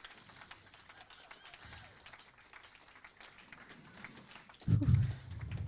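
Audience applauding, fairly faint scattered clapping. A loud low-pitched sound breaks in near the end.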